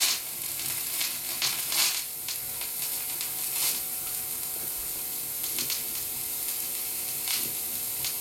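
Stylus riding the lead-in groove of a vinyl LP on a turntable: steady surface hiss with scattered crackles and pops.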